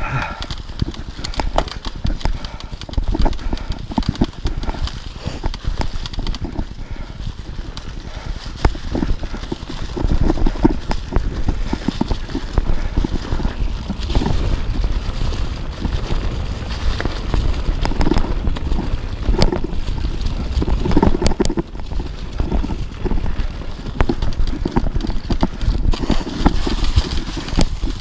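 Kona Process 153 mountain bike riding fast down a leaf-covered dirt trail: tyres rolling over dry leaves and dirt with a steady rumble, and the frame and parts rattling and knocking over bumps, with some wind on the microphone.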